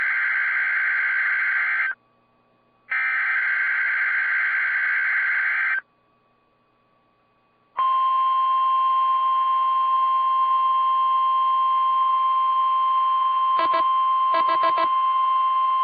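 NOAA Weather Radio alert signalling. Two harsh, buzzing bursts of SAME digital header data are separated by about a second of quiet. About two seconds after the second burst, the steady 1050 Hz warning alarm tone starts and holds, with a few brief clicks partway through.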